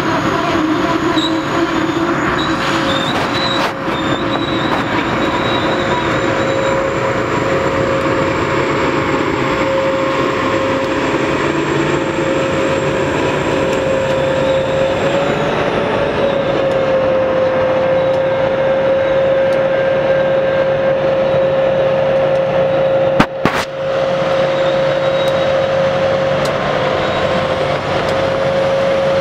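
Track-maintenance work train running past: a steady rumble of wheels on rail with a constant whining squeal over it, and a single sharp bang a little over 23 seconds in.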